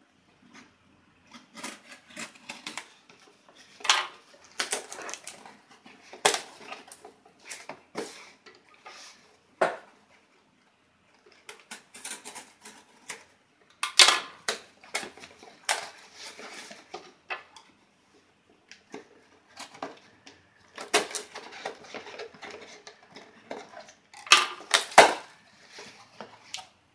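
Scissors scraping and snipping through packing tape on a cardboard shipping box, then the cardboard flaps being pried open and handled: irregular clicks, scrapes and rustles with short pauses.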